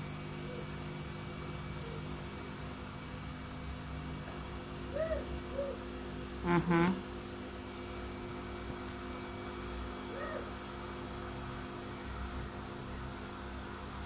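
Vacuum cleaner running steadily, a constant motor hum with a high whine. Brief voice sounds break in about halfway through.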